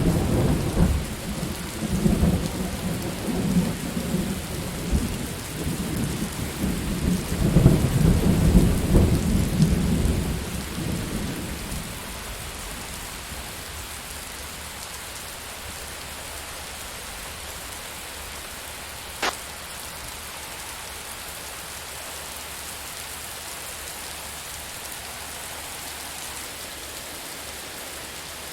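Steady rain with a long rumble of thunder that swells about eight seconds in and dies away a few seconds later. After that only the even hiss of the rain remains, with one sharp tick about two-thirds of the way through.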